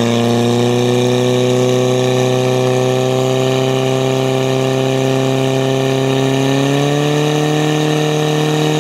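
Portable fire pump engine running flat out at high revs, steady, driving water through the hose lines to the nozzles. Its pitch steps up slightly about seven seconds in.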